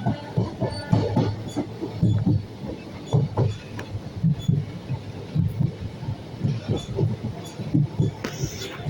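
Train wheels clattering irregularly over rail joints and points as a train runs along the track, with a short high-pitched hiss or squeal near the end.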